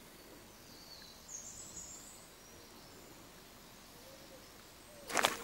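Quiet woodland ambience with a few short, high bird calls about a second in, then footsteps crunching on a woodland path starting near the end.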